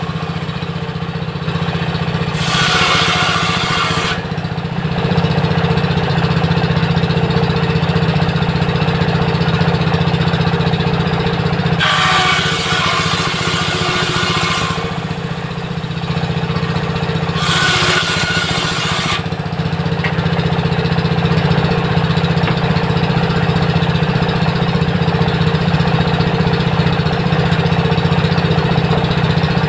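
A 16 HP diesel engine drives a homemade table saw and runs steadily throughout. Three times, at about two, twelve and eighteen seconds in, a few seconds of harsher cutting noise rise over it as the circular blade rips through wood.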